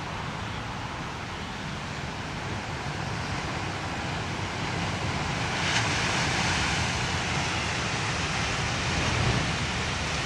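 Ocean waves washing over and breaking against a rock shelf, with a steady wash of surf. About halfway through, a wave crashes onto the rocks with a sudden, louder burst of spray.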